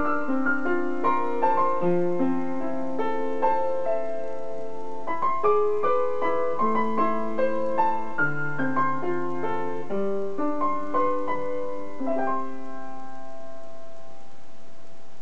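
Upright piano played solo: the closing phrase of a melody over chords, ending about twelve seconds in on a final chord that is held and rings out.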